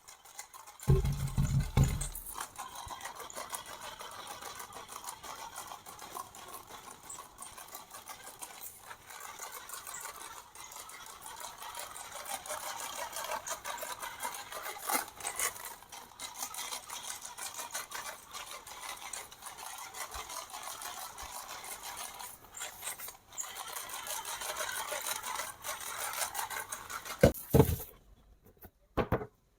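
A remote-control toy's small electric motor and gears whirring steadily with many small clicks, after a low thump about a second in; it stops shortly before the end.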